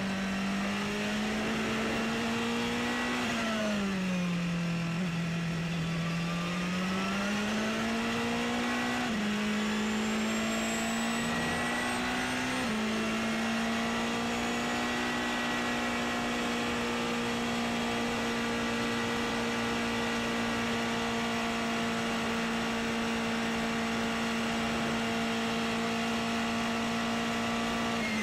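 Porsche 919 Hybrid's turbocharged 2.0-litre V4 racing engine, heard from onboard. The engine note dips and climbs through a corner over the first several seconds. It then holds an almost steady pitch through a long flat-out run, with a faint high whine rising above it in the middle.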